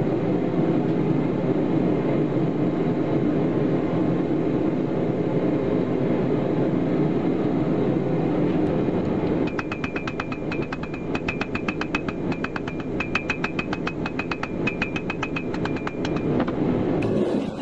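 A steady low rushing noise runs throughout. About halfway in, a hand hammer starts striking red-hot steel on a steel anvil in a fast, even run of about four to five blows a second, and each blow rings the anvil with a high tone. The hammering stops shortly before the end.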